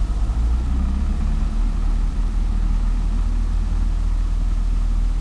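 Cessna 172's piston engine running steadily at high power during the takeoff roll, heard as a loud, even drone from inside the cockpit.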